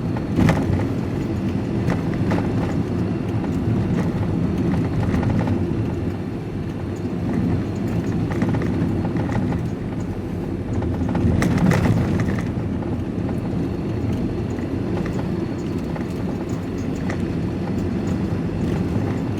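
Steady engine and road rumble inside a moving van's cab, with a few brief knocks and rattles, the most noticeable about two-thirds of the way through.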